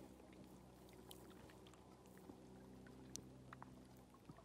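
Near silence: faint small clicks and drips of lake water lapping among shore rocks, over a faint steady low hum that stops about four seconds in.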